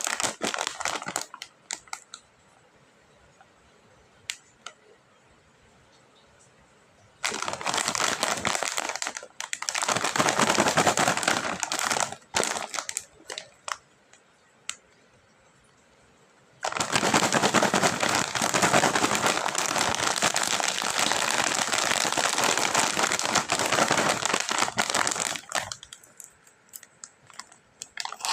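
Snack and candy packaging being handled, crinkling and rustling in bursts, the longest lasting about nine seconds near the end, with quiet pauses and a few light clicks between.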